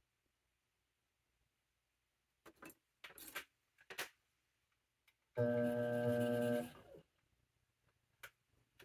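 Electric potter's wheel motor humming for about a second, then winding down, after a few short scrapes of wet clay being handled on the wheel.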